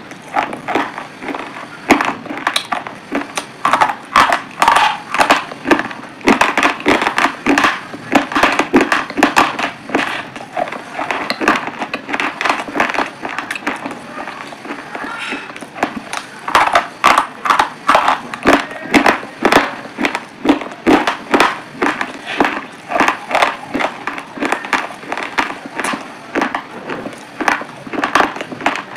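Close-miked crunching and chewing: a fast run of crisp bites and crunches, several a second, thinning out for a few seconds about halfway through before picking up again.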